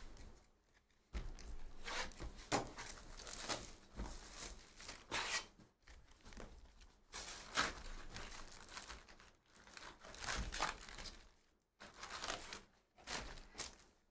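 Cardboard hobby box of trading cards being torn open and its foil-wrapped card packs pulled out and stacked, with irregular tearing, crinkling and rustling that starts about a second in.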